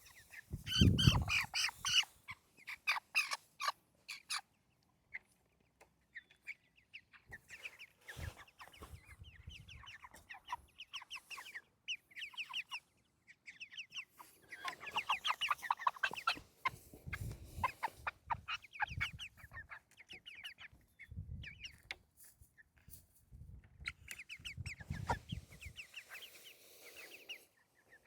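A flock of meat chickens clucking and peeping in quick runs of short, high calls, busiest around the middle, with a few low knocks.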